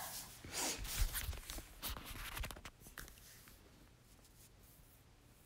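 Rustling and shuffling of someone moving and handling things close to the microphone, with a few soft knocks, dying away about three seconds in.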